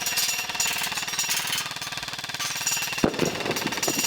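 Airsoft electric gun firing a long burst on full auto, a rapid, even rattle of shots with a high mechanical whine on top, and a sharper knock about three seconds in.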